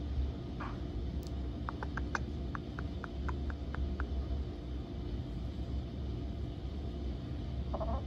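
A chicken clucking: one short cluck, then a quick run of about a dozen soft clucks, a few each second, and one more short cluck near the end, over a low steady hum.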